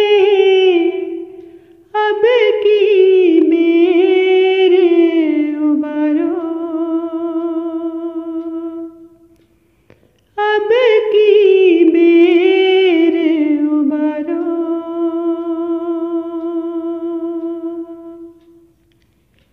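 A solo voice sings the closing phrases of a Hindi devotional bhajan, unaccompanied. There are two long melodic phrases, each ending on a long held note with vibrato that fades away; the second dies out near the end.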